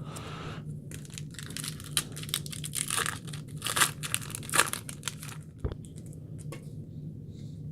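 A trading-card pack wrapper being torn open and crinkled by hand: a run of sharp crackles and rustles that thins out about six seconds in.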